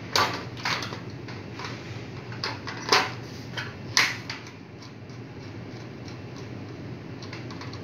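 Screwdriver clicking and scraping against a plastic fire-detector mounting base while its wiring terminals are worked on: a string of sharp clicks in the first four seconds, the loudest about three and four seconds in, then only faint ticks. A steady low hum runs underneath.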